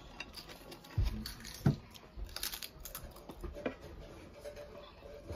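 Crisp potato chips crackling and crunching as they are handled and bitten, in scattered sharp clicks. Two dull thumps stand out, about a second in and just before two seconds.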